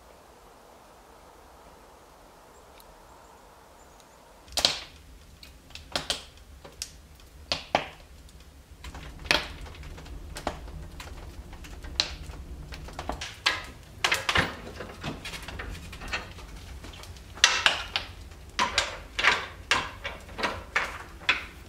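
Fire burning in a cast-iron wood stove: after a few quiet seconds, irregular sharp pops and knocks that come thicker toward the end.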